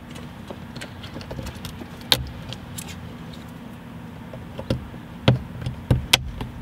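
Sharp plastic clicks of rocker switches on a SPOD overhead switch panel being pressed and snapped into place, about half a dozen, spaced irregularly and bunched in the second half, over a steady low hum.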